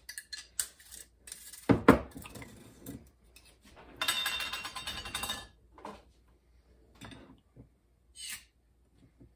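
Kitchen clatter of dishes and utensils: scattered clinks and a sharp knock about two seconds in, then a hissing, rustling noise for about a second and a half a little after the middle, and a few faint clicks near the end.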